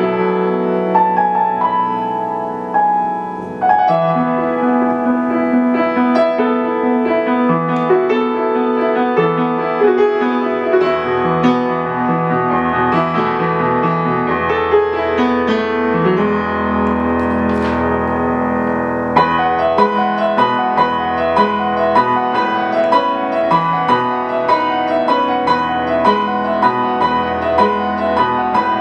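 Piano playing a gentle instrumental piece, a steady flow of melody notes over sustained low bass notes.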